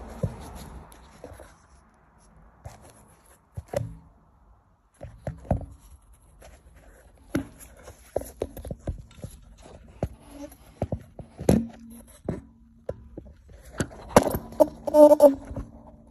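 Irregular knocks, clunks and handling clatter with short quiet gaps. A louder cluster of knocks near the end includes a brief squeaky, pitched sound.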